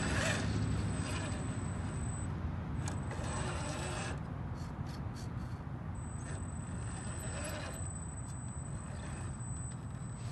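RC scale crawler's electric motor and gears whirring in spells as it creeps over dirt ruts, over a steady low rumble.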